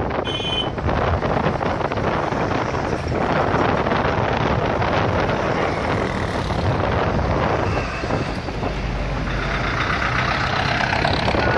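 Traffic of a passing convoy: cars, decorated trucks, a bus and motorcycles driving by close, their engines and tyres making a dense, steady noise. A brief high tone sounds just after the start.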